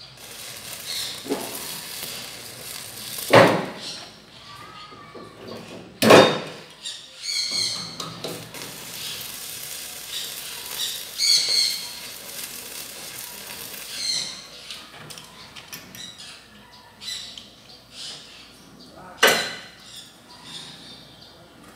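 Metalwork sounds during arc welding on a steel frame: a few sharp knocks, the loudest about three and six seconds in and again near the end, with short high chirps scattered between them.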